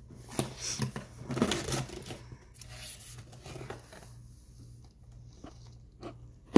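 Tearing and rustling as a sealed cardboard camera box is slit and pulled open, in irregular bursts that thin out after a few seconds. A single sharp knock right at the end is the loudest sound.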